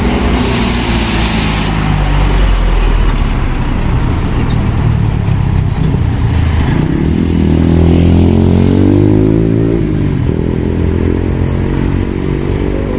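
Diesel truck engine running and revving as the truck pulls away, its pitch rising then dropping back about ten seconds in. A loud hiss sounds in the first second or two.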